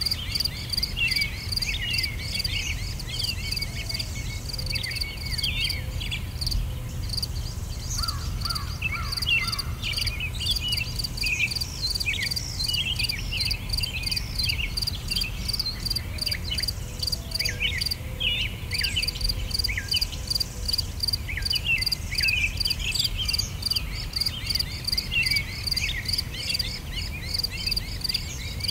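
Insects chirping in a steady, even pulse, with many short bird chirps scattered over it and a low background rumble.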